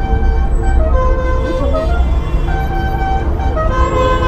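Busy street traffic heard from a moving bicycle, with steady wind rumble on the microphone and a run of held pitched tones that step up and down in pitch.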